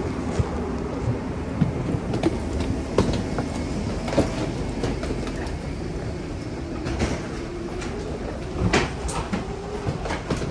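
Wheels of a rolling carry-on suitcase rumbling along the floor, with scattered knocks and clicks, over a steady low hum.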